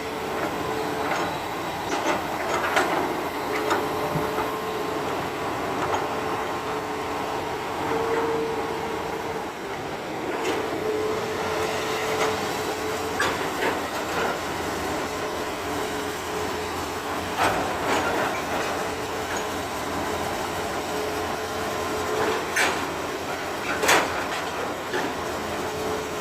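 Excavators working earth: a steady diesel engine and hydraulic hum with a whine that comes and goes, broken by scattered sharp metallic clanks.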